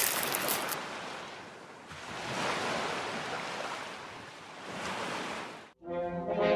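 Ocean waves washing, swelling and ebbing twice before cutting off abruptly near the end. Brass music begins just after the cut.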